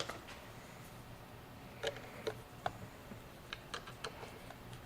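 Faint, irregular small metallic clicks and taps of a wrench working the nut on a battery terminal as the power cable is fastened.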